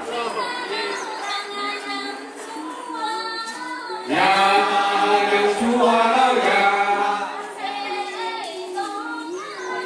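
Group of voices singing an unaccompanied Dong ring-dance song, the dancers' own chorus; it grows louder about four seconds in and eases off near the end.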